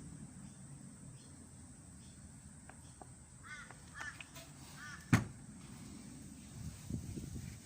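A bird, crow-like, calls three short times in the background, and a single sharp click or knock comes about five seconds in.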